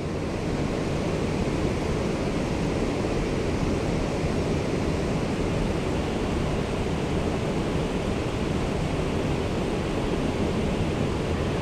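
Steady rushing of a fast-flowing creek spilling over a small cascade, an even, unbroken water noise.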